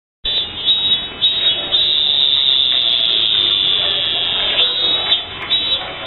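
Cicada singing: a shrill, high buzzing call, first in short pulses, then held as one long note for about three seconds, then breaking into short pulses again near the end.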